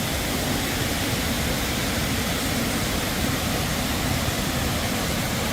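Waterfall: a steady rush of falling water over rock, even and unbroken.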